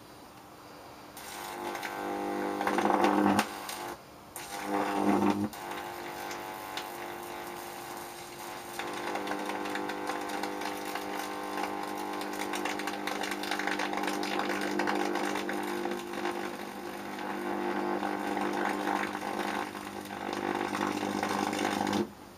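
High-voltage electric arc buzzing steadily through a neon test screwdriver, with crackling as its handle burns in open flame. The buzz breaks off briefly about three and a half and five and a half seconds in, then runs on until it cuts out suddenly near the end.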